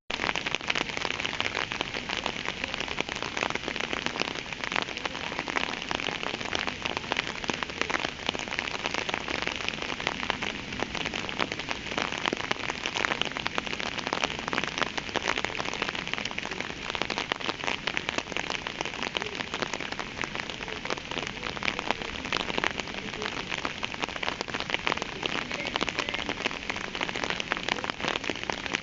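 Steady rain falling, a continuous hiss with a dense patter of separate drops striking a surface.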